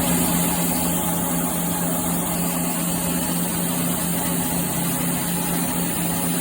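Automatic circular saw machine running with a steady, even motor hum over a constant hiss.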